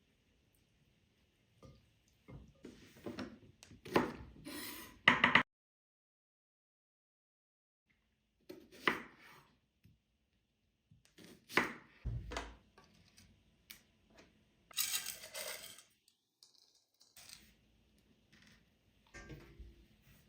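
Kitchen handling sounds: dishes and cutlery clinking and knocking in short, irregular bursts, with a silent gap of a few seconds partway through.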